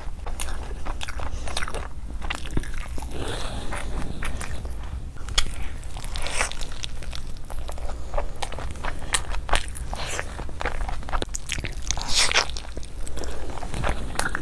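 Close-miked eating sounds: a person chewing and smacking through mouthfuls of biryani, mutton and flatbread, with dense irregular clicks and smacks. A steady low hum runs underneath.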